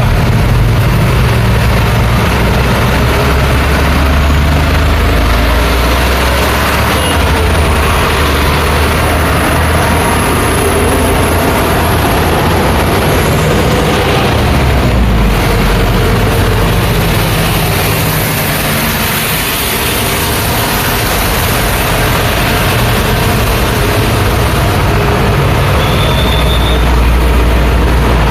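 Busy road traffic: engines of passing vehicles, including heavy trucks, making a continuous low rumble with tyre noise.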